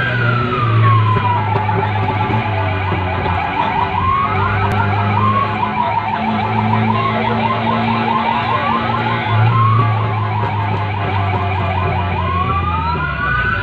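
Electronic emergency siren, heard from inside a vehicle's cab. It cycles from a slow falling wail into a rapid rising yelp, and the cycle repeats about every four seconds over a low steady hum.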